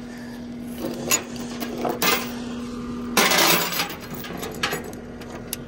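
Steel tie-down chain clinking and rattling as it is handled and pulled around a machine's track on a wooden trailer deck, in several short bursts with the longest, loudest rattle about three seconds in. A steady low hum underneath stops at about the same moment.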